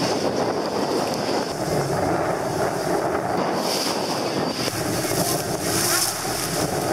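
A river tour boat under way: a steady rush of motor and water noise, with wind on the microphone.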